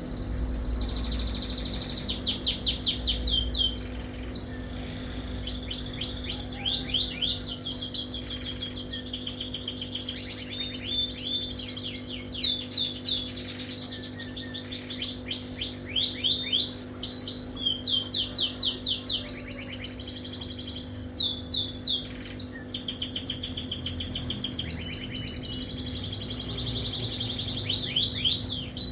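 Domestic canary singing a long, nearly unbroken song of fast trills and rolls, strings of quick down-sweeping notes with only brief breaks between phrases. This is the kind of extended-duration song that canary keepers prize. A steady low hum runs underneath.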